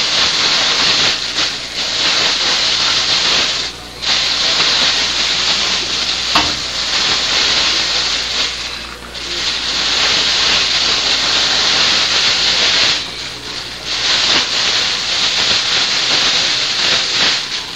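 A sack rustling and crinkling loudly as it is handled by hand with a cat inside, in long stretches broken by short pauses about 4, 9 and 13 seconds in.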